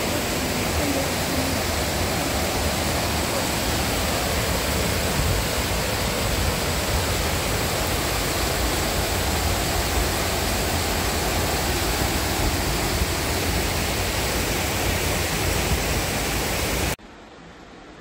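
Steady rush of a river cascading over small weirs, with rain falling. About a second before the end it cuts off suddenly to a much quieter indoor room tone.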